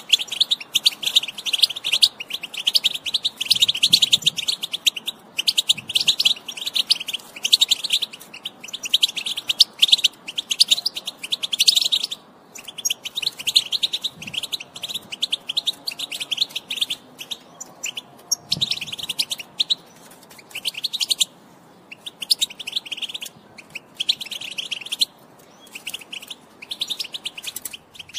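European goldfinch, a female by the title, twittering in rapid high chirps that come in bursts of a second or two with short pauses between. This is the female's chatter that keepers play to get male goldfinches singing.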